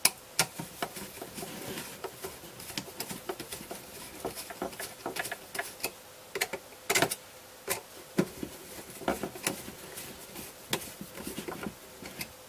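Irregular small metallic clicks and taps as a bolt is fitted through a carbon-fibre bracket plate and turned with a hex driver, a few of them sharper knocks.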